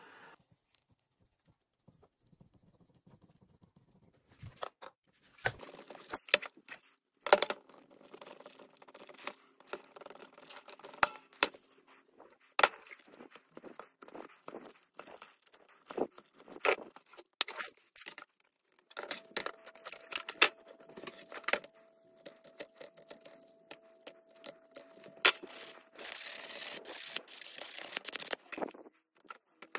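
Hard plastic of a cordless impact wrench's battery mount being cut and scraped with a utility knife and cutters, a long series of irregular sharp clicks and scrapes, as the mount is trimmed to take a DeWalt battery. Near the end it changes to a steady rubbing of sandpaper on the plastic.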